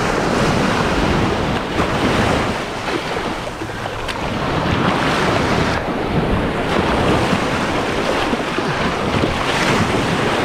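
Shallow ocean surf washing and foaming around the legs at the water's edge, swelling and easing, with wind buffeting the microphone.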